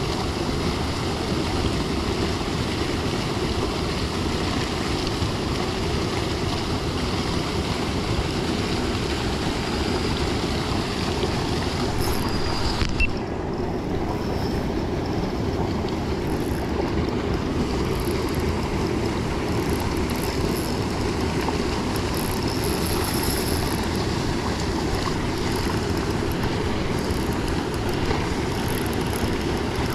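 Steady wind rumble on an action camera's microphone, over river water lapping at the bank, with a short louder moment about halfway through.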